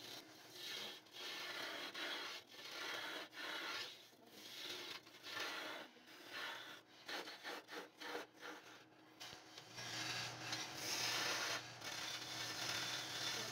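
A hand-held turning tool cutting a long wooden baluster blank spinning on a lathe, throwing shavings. The cut comes and goes in repeated passes, with a quick run of short strokes about two-thirds of the way through and a steadier, continuous cut over a low hum near the end.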